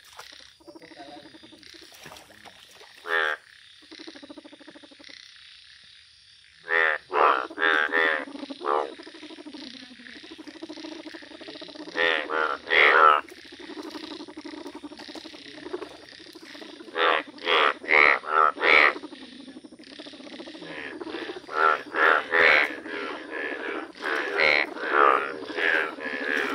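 Chorus of breeding male Indian bullfrogs calling: loud, pulsed croaks come in clusters of several calls every few seconds, over a steady background of more frogs calling.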